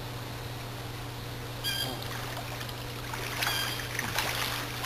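Pool water splashing and sloshing as swimmers move through it, busier in the second half. Under it runs a steady low hum, and a short high chirp sounds a couple of times.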